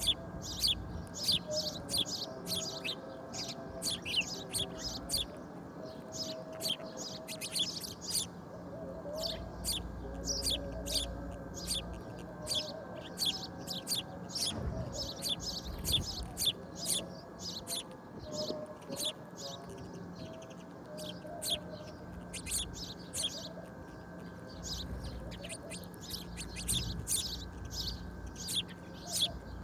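A flock of small birds chirping: many short, sharp, high notes in quick succession, overlapping, all the way through.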